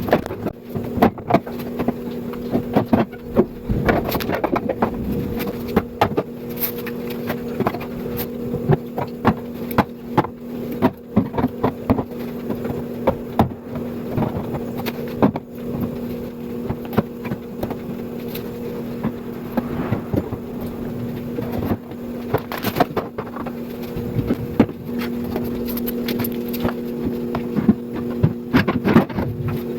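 Food containers and jars being handled and set onto refrigerator shelves: frequent irregular clicks, taps and knocks of plastic and glass, over a steady mechanical hum.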